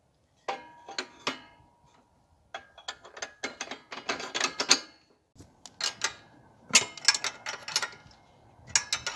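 Steel-on-steel clinks, knocks and rattles as a fan-type potato digger's hitch is worked onto the rear coupling of an Ugra walk-behind tractor. They come in several bursts of clatter, with a short metallic ring about half a second in.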